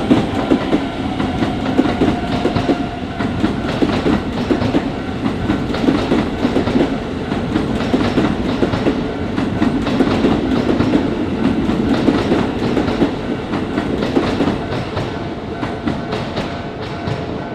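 Electric commuter train running past over a level crossing, its wheels clattering in a quick run of clicks over the rail joints above a steady rumble, easing off a little near the end.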